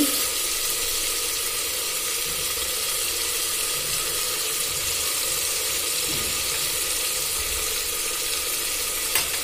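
Onions and tomatoes frying in oil in an aluminium pressure cooker, a steady sizzle, with one brief click near the end.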